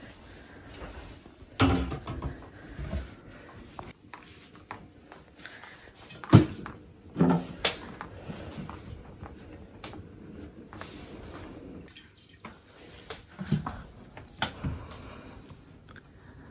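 Glass jars of milk being handled at a stainless-steel kitchen sink: several sharp knocks and clinks of glass set down and moved on the counter, the loudest about six seconds in.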